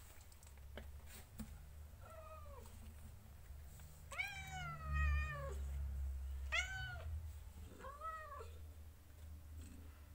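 Young kittens mewing: four high, thin mews over about six seconds, the second the longest and loudest at about a second and a half.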